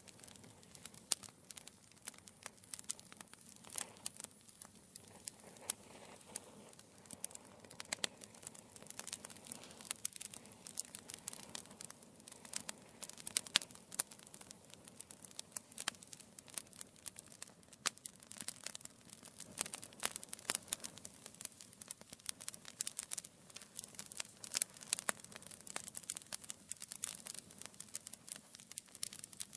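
Wood fire burning in a fireplace, crackling with dense, irregular pops and snaps over a faint low rumble of the flames.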